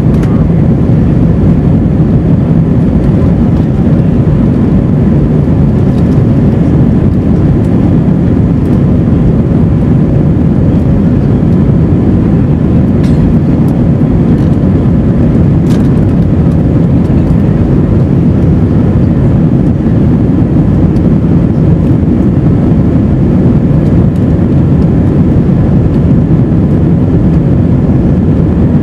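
Steady low rumble of an Airbus A320's engines and rushing air, heard inside the passenger cabin during the climb after takeoff, with a faint steady hum above the rumble.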